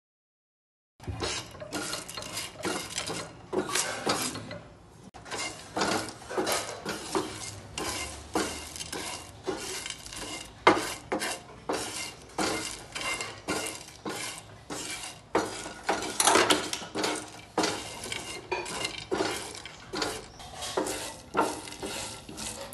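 Wooden spatula scraping and stirring whole spices (green cardamom pods, cinnamon sticks, cloves) across a dry black griddle as they are dry-roasted, in repeated strokes about once or twice a second, starting about a second in, with one sharper knock about halfway through.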